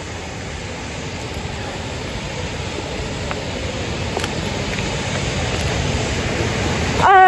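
Rushing water of a stream and small waterfall, a steady noise that grows gradually louder. Near the end a voice breaks in with a long, falling, drawn-out call.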